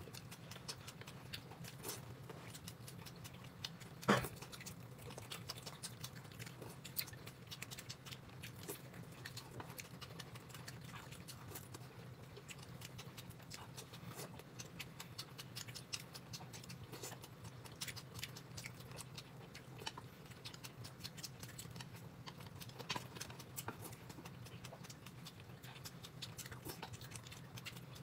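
A person eating: frequent small clicks and taps of chewing over a low steady hum, with one louder knock about four seconds in.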